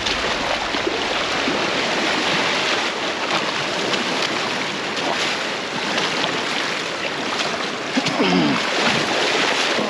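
Surf washing onto the beach: a steady rush of breaking waves.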